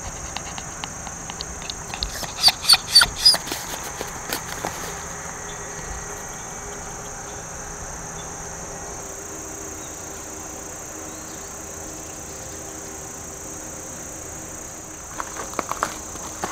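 Steady high-pitched chirring of insects in the background. Footsteps crunch on gravel, a cluster about two to three and a half seconds in and again near the end.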